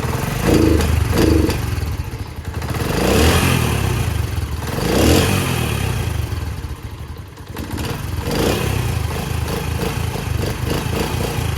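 Honda CD70's small single-cylinder four-stroke engine running, blipped several times from idle as it warms up after a cold start.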